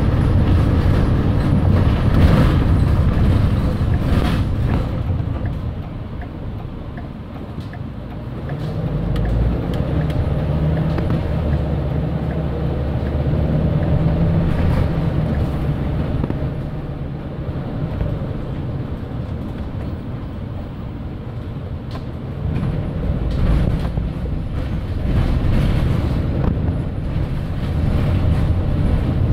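Engine and road noise heard from inside a moving vehicle's cabin, a low rumble that rises and falls as it drives slowly through streets, with a couple of short knocks in the first few seconds.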